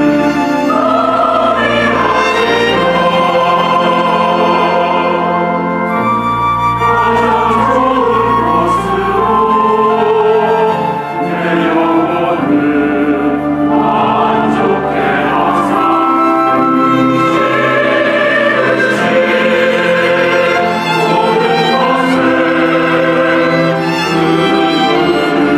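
Mixed church choir singing a Korean sacred choral anthem with orchestral accompaniment, strings among it.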